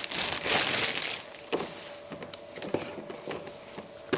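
Plastic packaging rustling and crinkling for about a second, then several light knocks and clicks as the laptop-style power adapter is handled and turned over.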